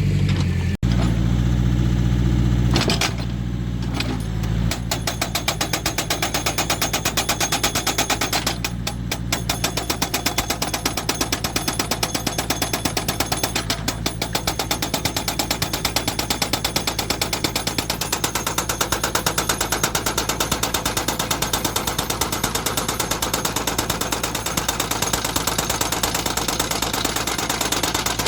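Hydraulic breaker on a JCB 3D backhoe loader hammering rock in a rapid, steady rhythm of blows, starting about five seconds in over the machine's diesel engine running.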